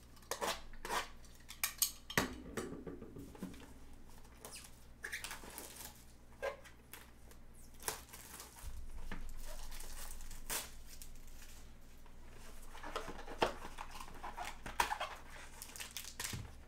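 A shrink-wrapped cardboard trading card box being unwrapped and opened by gloved hands: scattered crinkles, scrapes and taps of plastic wrap and cardboard, with a longer stretch of rustling in the middle.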